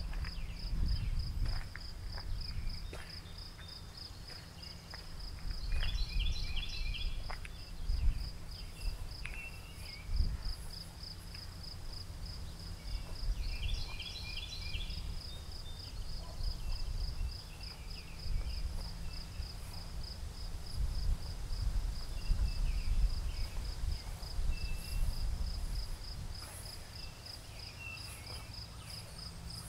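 Crickets chirping in a steady, even pulse, with a bird giving short bursts of quick repeated notes twice. Under them runs a low wind rumble, with a few faint clicks and rustles.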